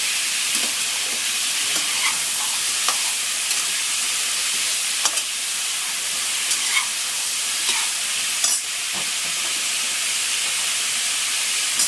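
Mixed vegetables sizzling in hot coconut oil in a pressure cooker, a steady hiss, while a slotted steel spatula stirs them, its edge scraping and clicking against the pan now and then.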